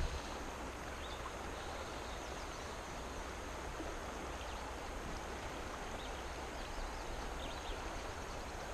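Steady rush of a river running high and fast, an even wash of flowing water.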